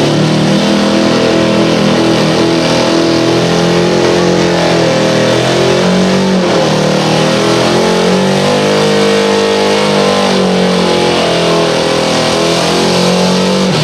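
Dodge pickup truck's engine held at high revs under heavy load while pulling a sled. The pitch wavers and dips briefly about six and a half seconds in, and the truck barely gains ground on the poor track.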